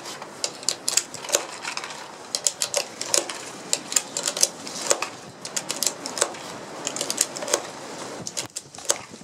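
UPLULA magazine loader clicking and snapping as 9mm cartridges are pushed one after another into a Smith & Wesson M&P9 pistol magazine, with brass cartridges clinking in the hand: a quick, irregular run of sharp clicks, several a second.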